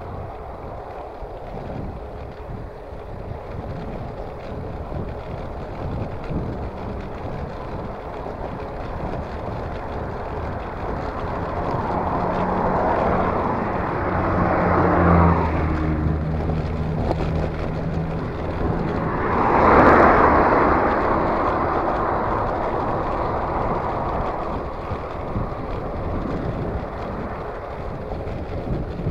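Wind rushing over a handlebar-mounted camera microphone on a moving bicycle, with cars driving past twice around the middle: each swells up and fades away, with a low engine hum between them.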